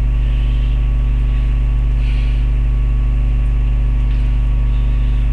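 Loud, steady mains hum at 50 Hz with a row of overtones, picked up in a webcam recording.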